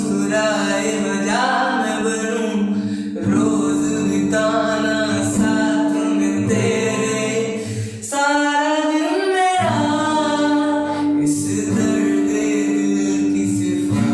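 Song: a solo voice sings a slow melody in long phrases over a steady held accompanying note, with a brief drop in the backing about eight seconds in.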